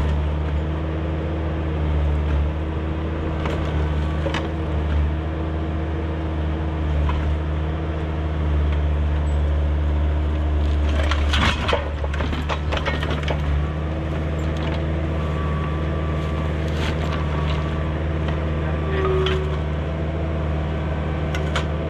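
Kubota excavator's diesel engine running steadily at idle, with scattered sharp metallic knocks and clanks and a close cluster of them about halfway through.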